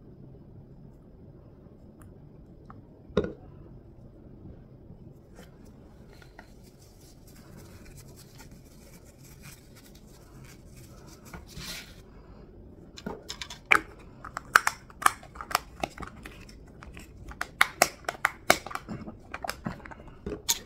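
Fingers handling a small plastic vape pod and its coil: a single knock about three seconds in, faint scratching, then a quick run of sharp clicks and scrapes through the last seven seconds.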